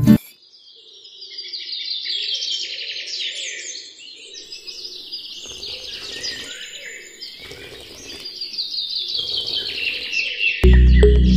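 Many small birds chirping and twittering together in a busy, continuous chorus. Loud music with a heavy beat cuts in near the end.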